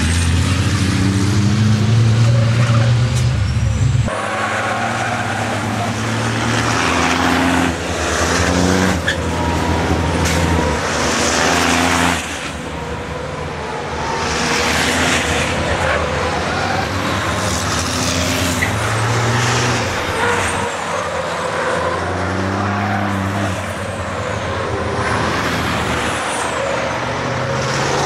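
Turbo-diesel racing trucks' engines passing on a circuit, their pitch rising and falling as they accelerate and change gear, with repeated bursts of hissing. A loud, low engine note cuts off abruptly about four seconds in.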